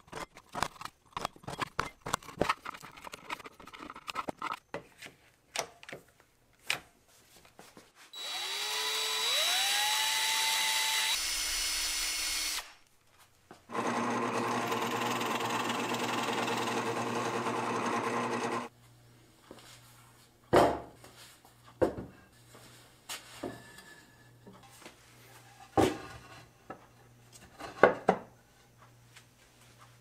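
Rapid light taps on a chisel for several seconds. About eight seconds in a power tool's motor spins up with a rising whine and runs briefly; from about fourteen seconds a drill press runs steadily for about five seconds, boring into black walnut, followed by a few scattered knocks.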